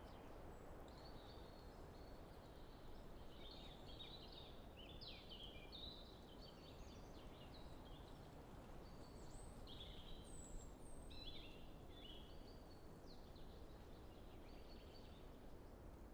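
Common chaffinch and European robin singing, with short, varied high phrases coming one after another, over the faint steady hiss of light wind in trees.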